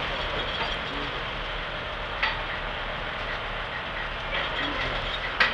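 Heavy machinery running steadily, with a sharp click about two seconds in and a louder one near the end.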